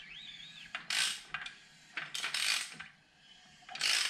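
A hand socket ratchet clicking in three short bursts about a second and a half apart, as the Honda CB550's engine is turned over by hand to bring the cam gear round.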